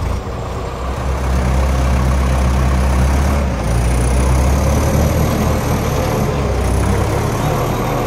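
Truck engine running, getting louder about a second in and holding a steady drone with a brief dip around the middle, with a faint high whine above it.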